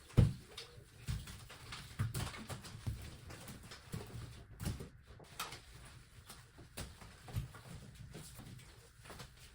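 Scattered knocks and taps of household objects being handled, with one loud thump just after the start.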